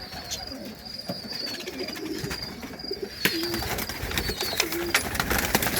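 Pigeons cooing low a few times, with sharp taps of birds pecking at grain feed from about three seconds in and a thin, broken high chirping over it.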